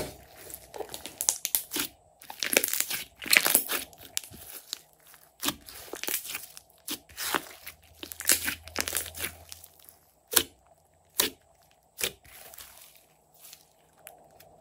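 Hands squeezing and pressing a large mass of glossy slime, making irregular squishing bursts. A few sharp separate pops come in the last few seconds.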